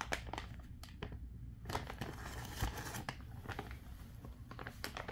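Plastic treat pouch crinkling and rustling in irregular bursts as a dog pushes its snout into it, with small scratchy clicks.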